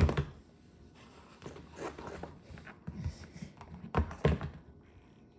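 Plastic action figures being handled and knocked together in a play fight: soft scattered taps, then two sharper knocks about four seconds in.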